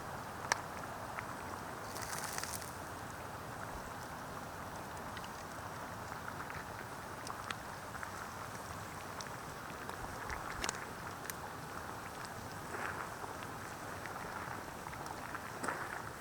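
Wood campfire crackling: a steady hiss with scattered sharp pops every second or so.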